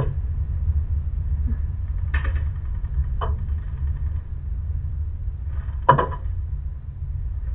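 Riding lawn mower's small engine idling with a steady low hum, with a few short sharp knocks at about two, three and six seconds in.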